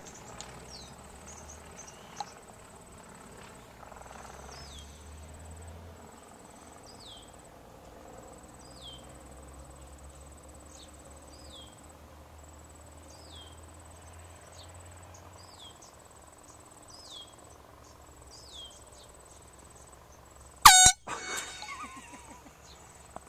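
A high, steady insect trill that stops and starts, with short falling chirps repeated about every second and a half. About twenty seconds in comes one short, loud blast from a handheld air horn, the loudest sound of all.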